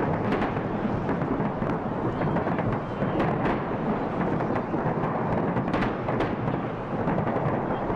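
Fireworks salute: a dense, continuous rumble of shell bursts with many sharp cracks scattered throughout, none standing much above the rest.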